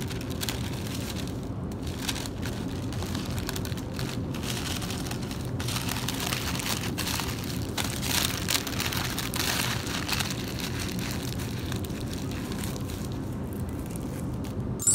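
Sheet of bakery paper rustling and crinkling as a round bread loaf is wrapped in it and the ends twisted shut, over a steady background hum.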